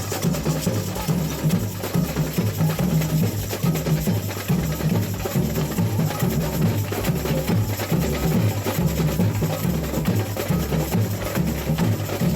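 Samba percussion music: a steady, repeating deep bass-drum beat with fast, dense sharp strikes like wood block and snare over it.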